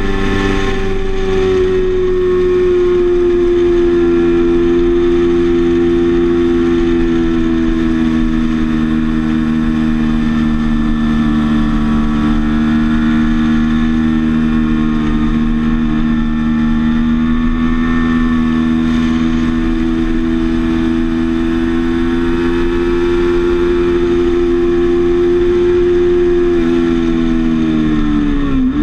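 Sport motorcycle engine running at high, fairly steady revs under throttle, its pitch drifting slowly. Near the end the pitch dips sharply and climbs back.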